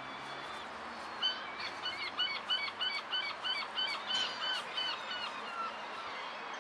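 A gull calling: a rapid run of about a dozen repeated yelping notes, about four a second, starting about a second in and stopping near the end, over a steady background hiss.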